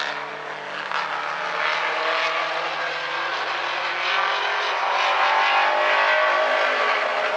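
Compact race cars' engines running around the oval on a cool-down lap after the finish. Their pitch rises and falls as the cars pass, and the sound is loudest about five to six seconds in.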